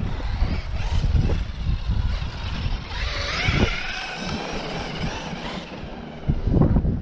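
Traxxas X-Maxx electric RC monster truck running on a 6S battery: its brushless motor and drivetrain whine, wavering in pitch, comes in strongly about three seconds in and fades after about two and a half seconds. Wind rumbles on the microphone, with a few thumps near the end.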